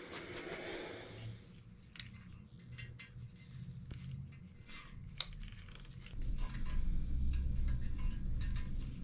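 Steel main bearing shells being handled and pressed into the main bearing saddles of an SRT-4 engine block by gloved hands: scattered light clicks and small metallic taps, with a louder low rumble joining in about six seconds in.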